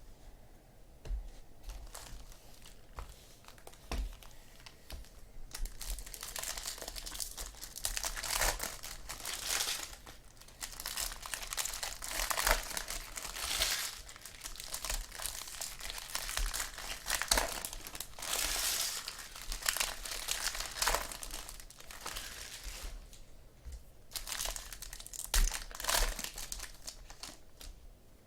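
Trading card pack wrappers crinkling and tearing as packs are opened and handled, in irregular bursts. It starts about five seconds in after a few soft clicks, with a short lull near the end.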